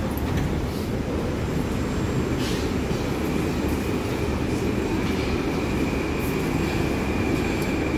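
Moscow-2020 (81-775/776/777) metro train standing at a station platform with its doors open: a steady low rumble and hum, with a thin steady high whine that sets in about three seconds in.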